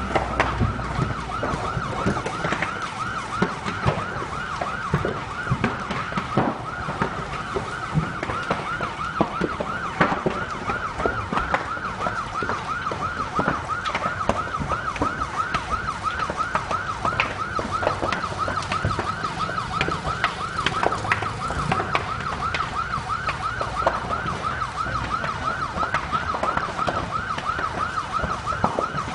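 Emergency vehicle siren in a rapid, steady warble, with sharp cracks and pops from the burning timber shophouses scattered throughout.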